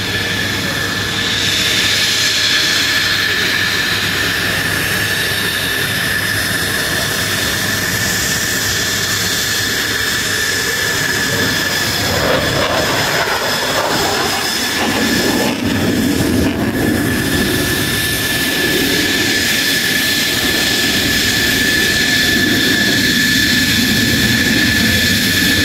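F-16 fighter's jet engine running as the jet taxis in: a steady high turbine whine throughout, with a deeper rumble growing louder from about halfway on.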